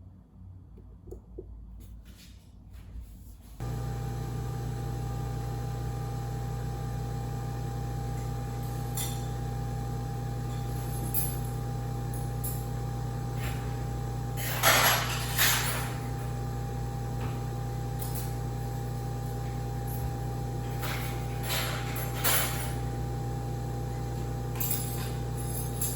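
A kitchen appliance switches on a few seconds in and runs with a steady electric hum, while glass and dishes clink a few times, loudest about halfway through.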